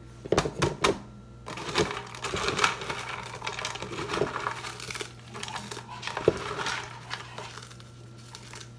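Crushed Hot Cheetos crunching and crackling as a hand presses and stirs them inside a blender jar, an irregular run of crumbly crackles with a few sharper clicks in the first second.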